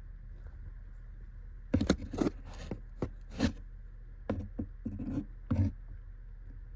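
A cat scraping at a wooden silver vine (matatabi) stick: a run of short, sharp scrapes in two bursts, the first starting about two seconds in.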